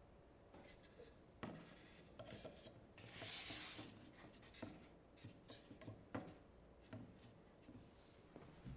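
Carved wooden plates handled on a wooden tabletop: several faint light knocks of wood on wood, with a brief scraping rub about three seconds in as a plate is slid into place.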